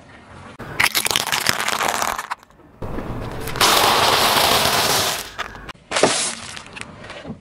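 A car tyre rolls over and crushes small objects one after another. A burst of sharp cracking starts a little under a second in as a translucent ball gives way. A longer, louder crunching follows from about three and a half to five seconds as a pile of cheese puffs is flattened. Near six seconds a short crackle comes from a snack bag bursting under the tyre.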